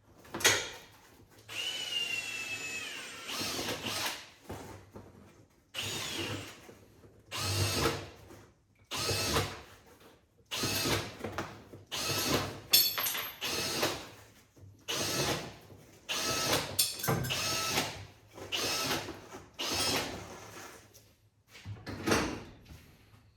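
Handheld power tool run in over a dozen short bursts of one to two seconds each, with brief pauses between, rising in pitch as it spins up. It is undoing bolts during the strip-down of a tractor engine.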